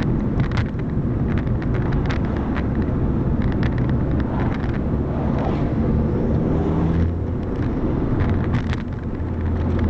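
Car on the move: a steady low engine and road drone, with irregular sharp clicks scattered all through it.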